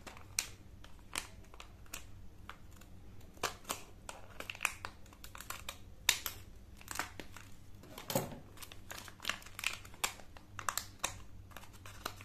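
Silvery antistatic plastic bag crinkling and crackling as it is cut with scissors and pulled open by hand: a string of irregular sharp crackles.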